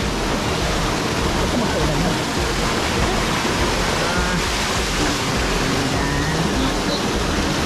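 Steady rush of falling water, loud and even throughout, with faint voices under it.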